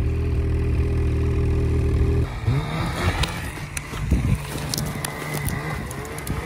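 Snowmobile engine held at steady high revs while the sled is stuck in deep snow. A little over two seconds in it cuts off abruptly to a quieter engine note that rises and falls, with scattered short crackles over it.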